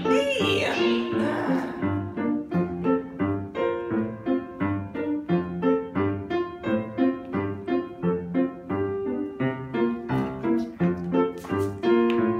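Piano accompaniment playing an instrumental dance passage in a steady, bouncy rhythm: a low bass note followed by repeated chords.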